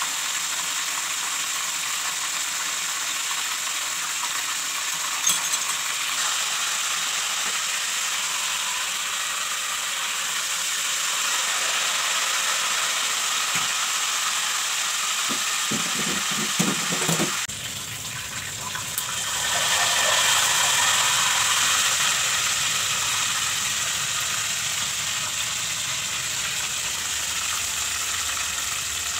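Marinated chicken frying in hot oil in a stainless steel pot, a steady sizzle. A few short knocks come near the middle, the sizzle drops briefly about 17 seconds in, then comes back louder.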